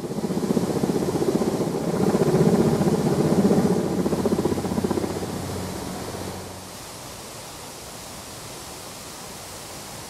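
Helicopter flying overhead: a rapid, steady beating of the rotor with engine noise, loud for the first six seconds or so, then dropping to a quieter steady rush as it fades off.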